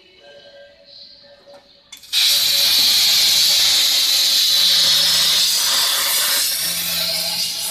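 CNC plasma cutter's torch arc striking about two seconds in with a sudden loud hiss, then cutting through metal bars with a steady, high hiss.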